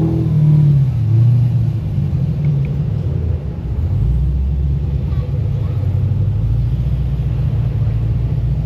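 A V8 car engine revs. Its pitch rises and falls in the first second, climbs again about three seconds in, then settles into a steady low rumble.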